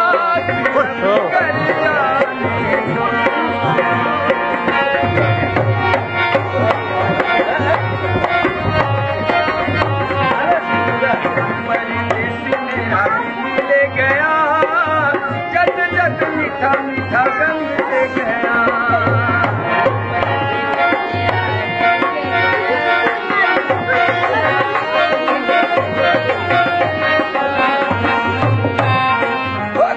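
Music for a kathputli puppet show: a hand drum in the tabla or dholak family keeps up a steady rhythm under a wavering melody line.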